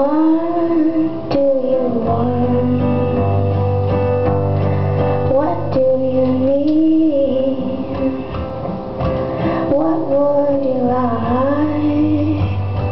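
Live performance of a song: a woman singing long, gliding melody lines over instrumental accompaniment with held low bass notes.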